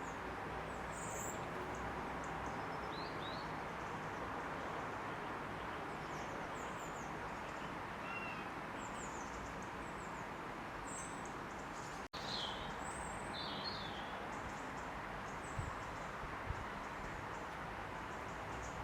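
Small birds chirping now and then over a steady hiss of outdoor background noise. The sound drops out for an instant about twelve seconds in.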